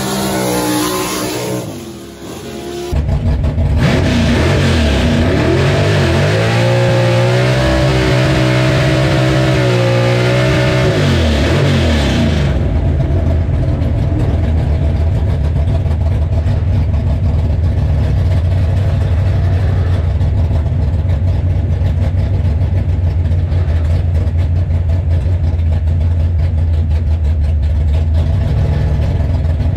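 Chevrolet 409 V8 in a 1933 Willys gasser. It starts at high revs during a tyre-smoking burnout. About three seconds in, heard from inside the cab, the engine revs up and down repeatedly. About twelve seconds in it settles into a steady low idle.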